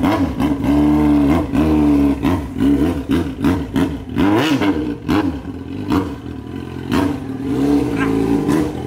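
Yamaha XJ6 600 cc inline-four motorcycle engine running and being revved in repeated short blips, its pitch rising and falling over and over as the bike is ridden slowly.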